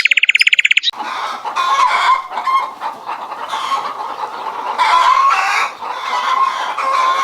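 A flock of chickens clucking and calling over one another, many birds at once. In the first second, before the clucking begins, a rapid high trill.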